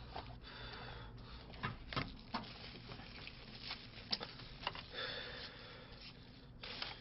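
Faint clicks and knocks of disposable plastic food containers and lids being handled, with a short rustle of plastic wrapping about five seconds in.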